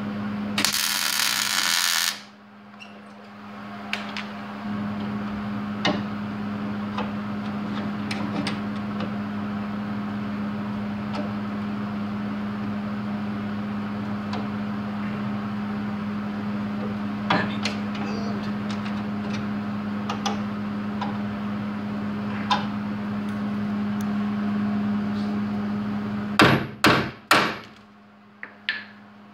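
A MIG welder striking a tack weld on steel: a crackling hiss lasting about a second and a half, about a second in. A steady hum runs underneath with scattered light clicks, and three sharp knocks come near the end.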